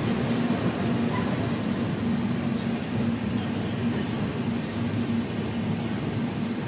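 Passenger express train running along the track: a steady rumble of the coach and wheels on the rails, with a constant low hum underneath.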